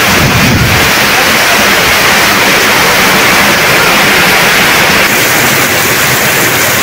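Heavy monsoon rain pouring down on corrugated tin roofs and trees, a loud steady hiss of rain with water running off the roof eaves. A brief low gust-like rumble comes in the first second.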